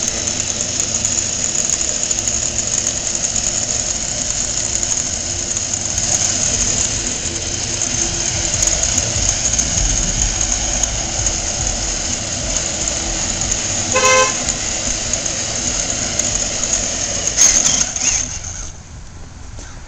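Steady rushing wind and road noise from riding along, which drops away near the end. About two thirds of the way through, a car horn gives one short beep.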